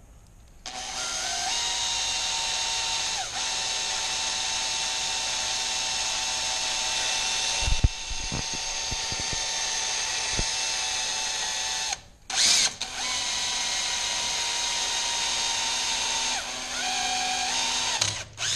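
Power drill boring a mounting hole in the generator's metal frame, its motor running steadily for about eleven seconds with a few low knocks about eight seconds in. It stops, gives a short burst, then runs again, dropping in pitch briefly near the end.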